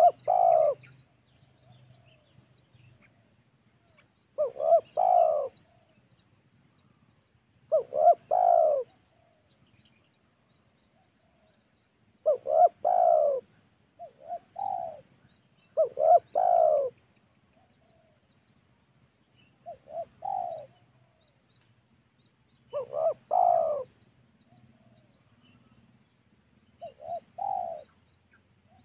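Spotted dove (tekukur) cooing: about nine short phrases of two to four quick coos, one every three to four seconds. It is a lure call used to draw in wild spotted doves.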